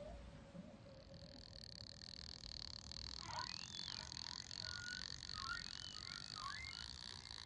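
Recorded whale vocalizations played as a sound effect: short high squeals and chirps, some gliding up or down, over a faint steady high tone and a low hum.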